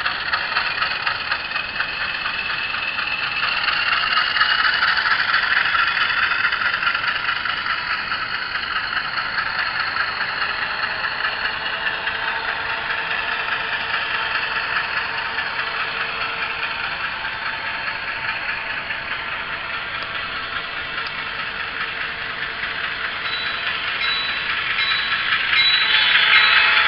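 ESU LokSound decoder in an HO scale GE U28C model playing the diesel prime mover sound through its small speaker: a fast, clattering engine note that revs up a few seconds in, holds, eases back, and climbs again near the end.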